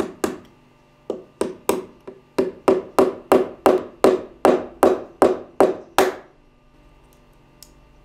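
A small brass-headed hammer softly tapping a thin, knife-edged wooden sliver into a crack in a reed organ's wooden reed pan. There are about seventeen light taps at roughly three a second, and they stop about six seconds in.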